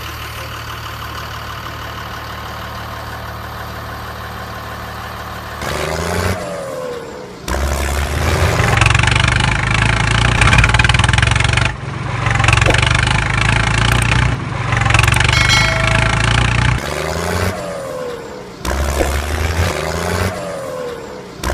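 Tractor engine sound effect laid over the footage, running and revving. It comes in spliced segments that switch and cut off abruptly several times.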